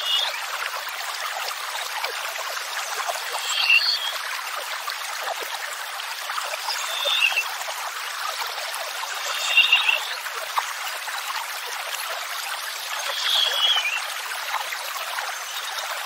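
Steady rush of running water, with a bird's short high chirping call repeating about every three to four seconds, five times in all.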